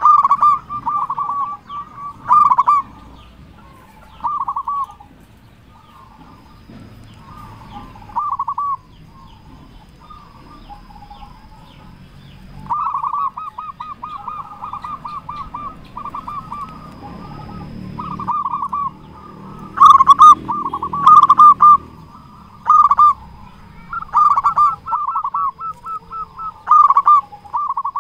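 Zebra dove cooing: phrases of quick, rolling coo notes, repeated in bursts with short pauses between, coming more often and loudest in the second half.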